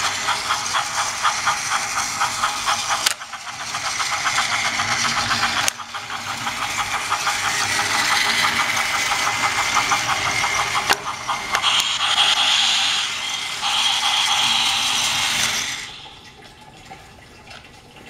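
Battery-powered Trackmaster motorized toy train engine (Spencer) running on plastic track: an electric motor whir with rapid, even rattling clicks from its gears and wheels. The sound changes abruptly a few times and rises in pitch in the middle, as the speed is changed, then stops about two seconds before the end.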